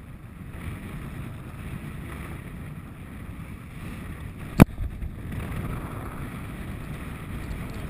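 Steady wind and water noise aboard a small fishing boat at sea, with one sharp knock about four and a half seconds in.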